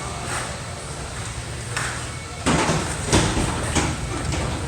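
Shopping cart being pushed across a store floor, its wheels rumbling, with a few clattering knocks from about two and a half to four seconds in.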